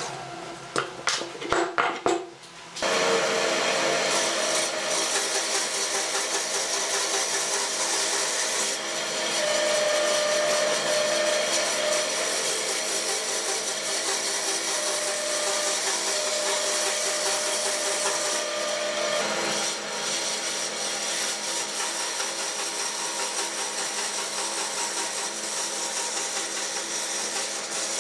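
A few short rips of tape being pulled from a roll and pressed around a block of wood. From about three seconds in, a band saw runs and cuts through the taped, glued-up wooden block with a steady motor hum and blade noise.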